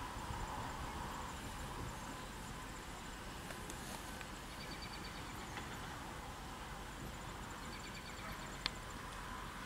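Outdoor ambience with a steady low rumble, with a horse's whinny trailing off about a second in. Faint high bird chirps come twice, and a single sharp click sounds near the end.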